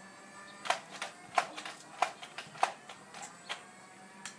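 A string of about ten sharp, irregular clicks and taps, unevenly spaced, the loudest in the first half.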